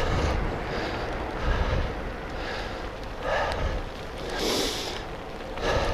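Wind noise on a bike-mounted camera's microphone and tyre rumble on a wet road while riding a road bike, with a few short breathy puffs.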